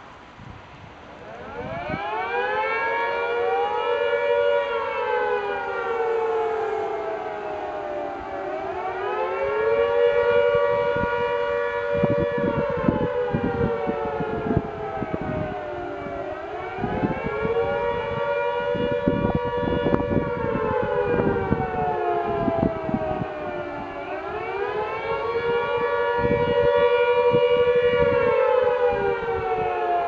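Air-raid siren sounding the rising-and-falling warning wail. It winds up about a second in, then its pitch swells and sinks in long slow sweeps, roughly every eight seconds.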